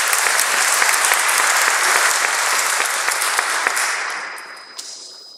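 An audience applauding after a speech, a steady patter of many hands clapping that dies away about four to five seconds in.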